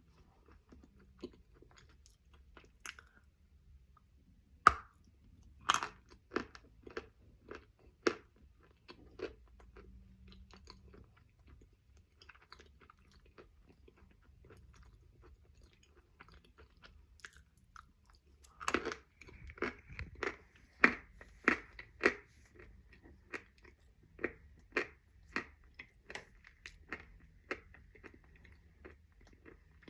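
A person biting and chewing a mouthful of Khrapovsky eating chalk, with crisp, brittle crunches. The crunches are sparse at first, go quiet for several seconds in the middle, then come thick and louder in the second half.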